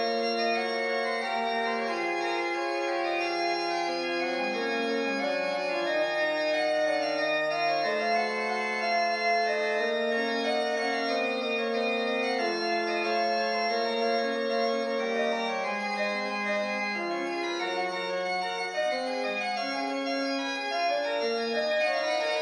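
Background organ music: held notes and chords that change every second or so, with no road or engine noise audible.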